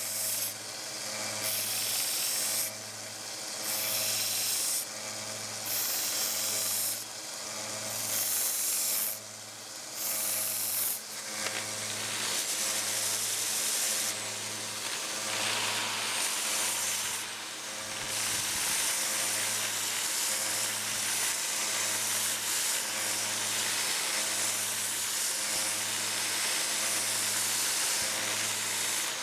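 Belt sander with a 120-grit belt grinding the steel of a pair of pliers. The rasping hiss of belt on metal comes and goes in short passes at first, then runs on steadily through the second half, over an even low pulse about once a second.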